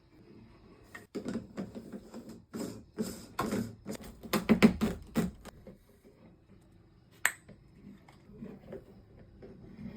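Knocks and clatter of hand work on a shower drain, with parts and tools handled in quick succession, loudest past the middle. Then a single sharp metallic ping about seven seconds in.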